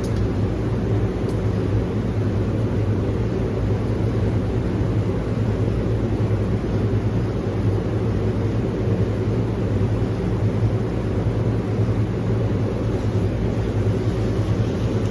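Steady low rumble of a car driving, the engine and road noise heard from inside the cabin.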